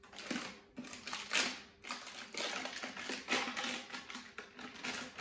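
Silver foil-like wrapping around a rocket motor's phenolic liner crinkling and rustling as it is handled, in a run of irregular rustles.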